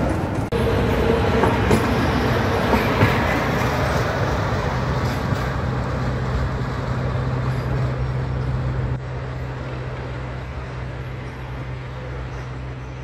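Tatra KT4YU articulated electric tram running on street tracks: steady wheel-on-rail rumble with a steady low hum, dropping a little in level about nine seconds in.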